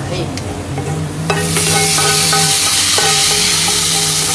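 Hot oil with fried shallots, leaves and dried chillies is tipped from a pan into a pot of yellow jackfruit curry, and a wooden spatula scrapes it in. About a second in it hits the curry with a sudden sizzle that keeps going: the curry being tempered.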